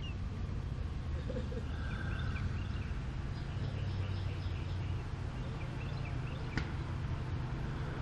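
Birds chirping in clusters of short, quick high chips over a steady low rumble, with one sharp click a little after the middle.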